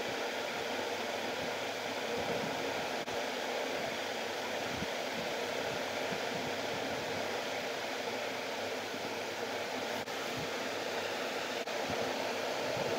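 Steady, even hiss of background noise, such as a room fan or recording noise.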